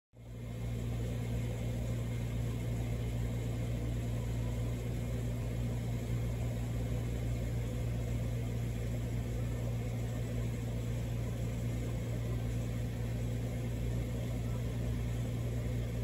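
Aquarium pump humming steadily: a low, even electric buzz with a faint hiss over it.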